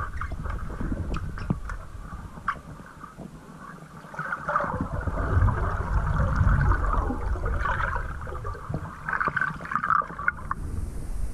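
Muffled underwater noise picked up by a camera below the surface: uneven low rumbling and gurgling with scattered sharp clicks, and bubbly surges that swell a few times.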